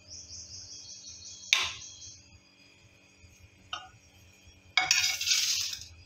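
A spatula scrapes milky ice-cream mixture from a nonstick pan into an aluminium tin, with a high thin squeak that slowly falls. A sharp metallic knock comes about a second and a half in, a lighter click a couple of seconds later, and a burst of noise about a second long near the end.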